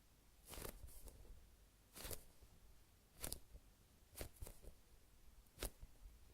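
High-rebound foam squishy toy shaped like a baked sweet potato being squeezed and rubbed close to the microphone: soft, scratchy squishes of its powdery-smooth skin, about one a second, some coming in quick pairs.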